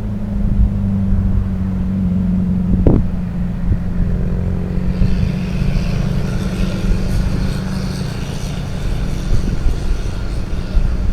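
A road vehicle's engine drones steadily as it runs past, with a single sharp knock about three seconds in. From about five seconds a fainter, higher whine joins the drone.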